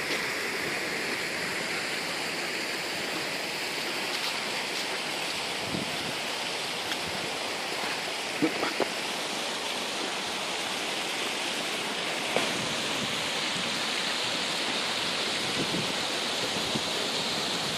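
Steady rush of water pouring through and over canal lock gates, with a few short knocks about halfway through.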